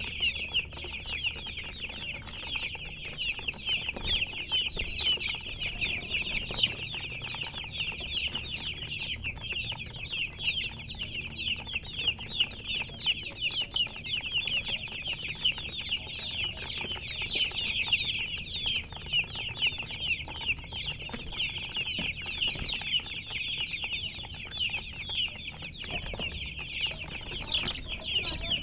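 A group of chicks peeping: a dense, continuous chorus of many short, high chirps overlapping one another.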